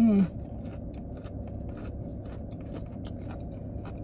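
A person chewing fried chicken gizzards close to the microphone: small irregular crunches and mouth clicks over a steady low hum. A short falling hum of the voice comes right at the start.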